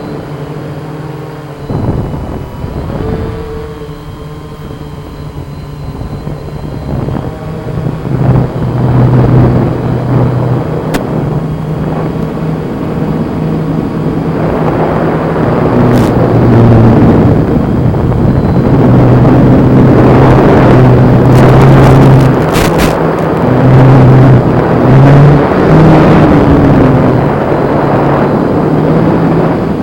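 Blade Chroma quadcopter's brushless motors and propellers whirring in flight, their hum stepping up and down in pitch with throttle, under a rushing wind noise that grows louder from about eight seconds in. A few sharp clicks come past the middle.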